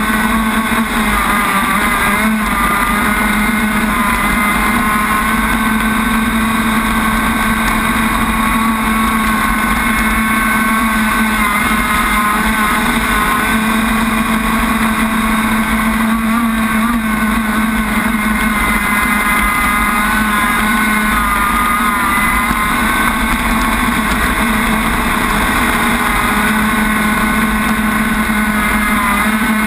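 Enforcer crackerbox RC boat running at speed, heard from on board: a steady motor note that wavers slightly in pitch, over the rush of water and spray against the hull.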